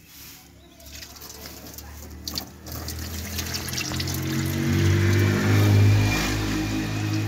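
Water being poured from a jug into a car radiator's filler neck, building up about three seconds in, with background music underneath.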